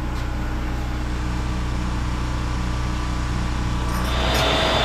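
Portable generator and oil transfer pump running steadily, a low hum with a slight regular pulse, while heating oil is pumped. About four seconds in, a louder hiss with a high steady whine joins.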